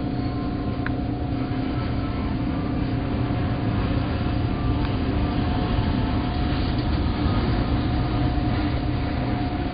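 Boeing 757 jet engines rumbling steadily on the landing rollout, heard from inside the control tower, with a constant hum over the rumble. The rumble grows a little louder about halfway through.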